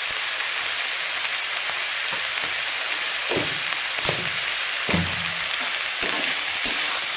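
Sliced mixed vegetables sizzling steadily in a hot wok. From about three seconds in, a metal spatula scrapes and knocks against the pan a few times as they are stirred.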